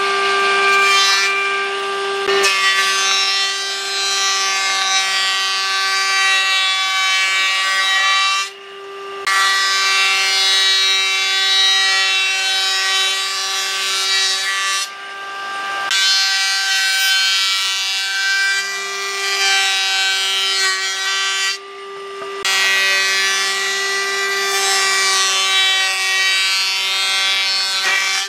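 Combination woodworking machine's thickness planer running, its cutterhead shaving a board fed through: a steady whine over the hiss of cutting. The sound breaks off briefly three times.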